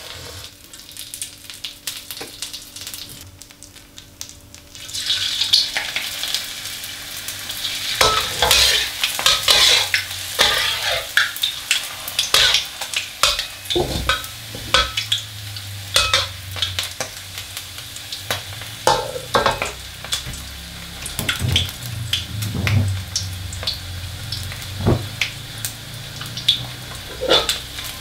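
Wontons deep-frying in a wok of hot oil, a steady sizzle that grows louder about five seconds in. Metal tongs and a ladle make frequent short clicks and scrapes against the wok.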